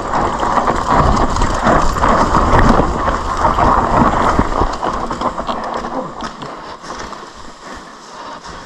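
Mountain bike tyres crunching over dry dirt and loose leaves on a fast descent, with the bike clattering over bumps and wind rumbling on the microphone. It grows steadily quieter from about halfway through as the pace eases.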